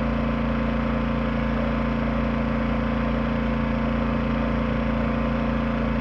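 Yamaha EF2000iS inverter generator running steadily in eco mode, with a constant hum and no change in pitch. It carries only the light load of an air conditioner's fan, with the compressor not yet started.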